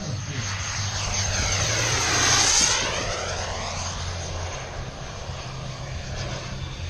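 Elite Aerosports Havoc radio-controlled turbine jet making a fast pass. It swells to its loudest about two and a half seconds in, and its high whine drops in pitch as it goes by, then fades away.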